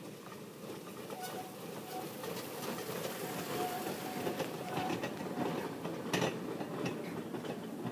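Small amusement-park ride train rolling past on its narrow-gauge track. Its wheels rumble and click over the rails, growing louder as it comes close, with brief squeaks in between.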